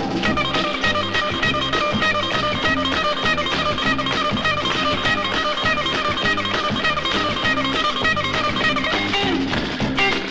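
Instrumental break of an early-1960s pop record: a guitar plays a lead melody of quick notes over a steady, repeating bass line and drums.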